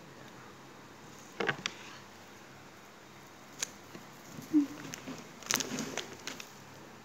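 Red tinsel garland and plastic packaging rustling and crinkling as they are handled, with a few sharp clicks and knocks; the loudest is a short low knock about midway.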